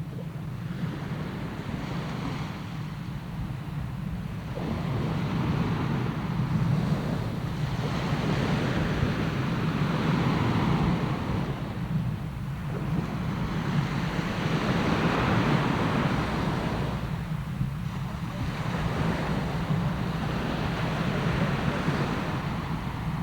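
Sea surf heard from about 50 m away: waves breaking and washing in, swelling and fading every few seconds over a steady low rumble.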